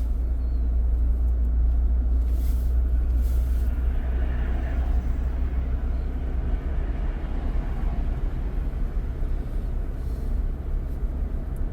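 Steady low road and engine rumble heard from inside a moving car's cabin, with a few faint, brief swishes over it.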